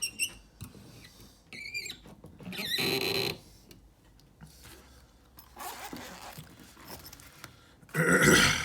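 Small metal lockpicking tools being handled and picked out: scattered clicks and scrapes, a longer scraping rasp about three seconds in, and a louder rustle near the end.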